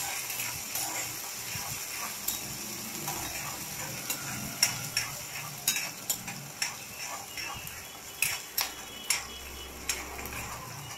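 Chopped green chillies, small onions, garlic and curry leaves sizzling in hot oil in a coated kadai as they are sautéed, a spatula stirring them and scraping and knocking against the pan, the knocks coming more often in the second half.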